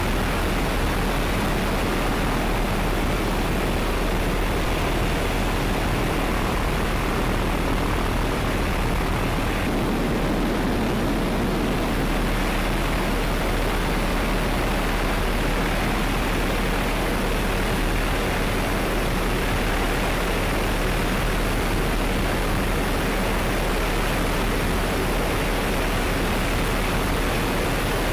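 Steady rushing noise of helicopter turbine engines and rotors, with a constant low hum underneath.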